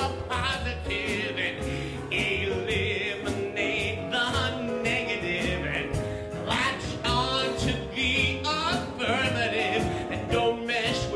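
A man singing with vibrato over a live band, with bass and a drum kit whose cymbals tick steadily through.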